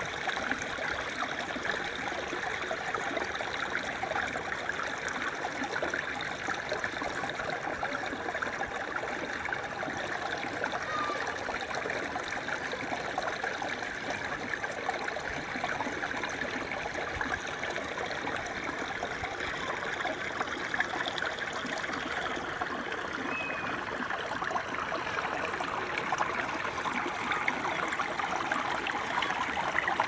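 Shallow, clear stream running over rocks and fallen leaves: a steady rush of flowing water.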